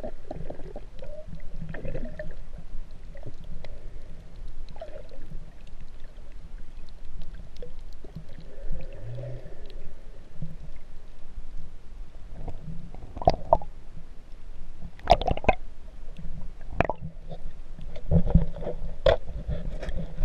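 Muffled underwater sound picked up by a submerged action camera: a steady low watery rumble and gurgle of a snorkeler breathing through the snorkel. Sharp pops and crackles of water and bubbles come in during the second half, as the camera nears the surface.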